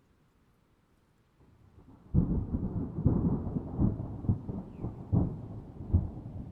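Thunder: after a near-silent start, a sudden thunderclap about two seconds in breaks into a deep rolling rumble with repeated crackling peaks.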